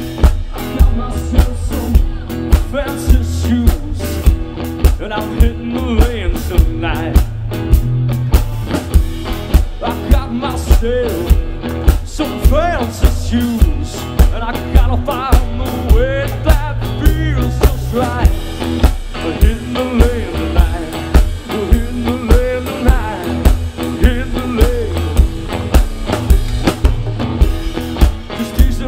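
Live rock band playing a blues-rock song: electric guitar, bass and a drum kit keeping a steady beat of about two hits a second, with a man singing into a microphone.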